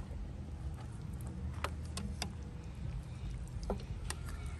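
A plastic ladle stirring vegetables and broth in a large metal pot, giving a few light clicks and knocks against the pot, over a steady low rumble.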